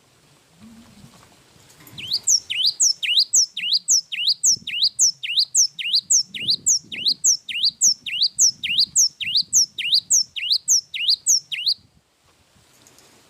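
Cinereous tit (gelatik wingko) singing a long run of its ringing two-note phrase, about two phrases a second. The song starts about two seconds in and breaks off near the end.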